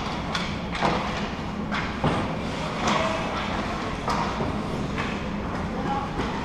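Ice hockey rink sounds: about six sharp skate scrapes and knocks on the ice, spread a second or so apart, over a steady background of arena noise.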